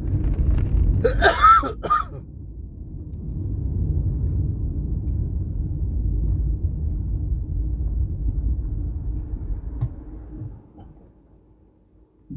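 Car cabin rumble from engine and road, with a person clearing their throat once, about a second in. The rumble dies away near the end.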